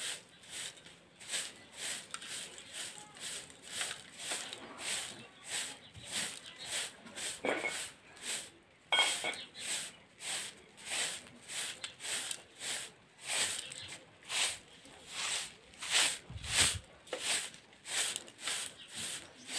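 Short hand broom of soft grass bristles swept across a hard courtyard floor in quick strokes, each a brief swish, about two a second.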